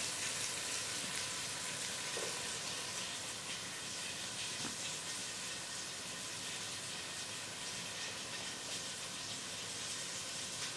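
Flour-dredged chuck roast cubes sizzling steadily in hot oil in a large pot as they brown, still searing and not yet ready to turn.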